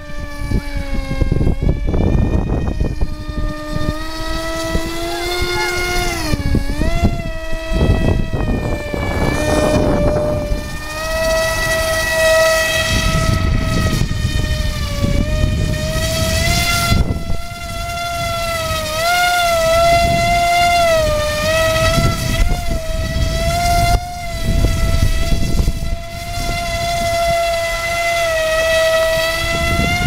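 Electric motor and propeller of an RC Powers F18 V2 foam jet running in flight: a steady whine whose pitch rises and falls with throttle and the plane's passes, dipping sharply a few seconds in. Wind buffets the microphone underneath.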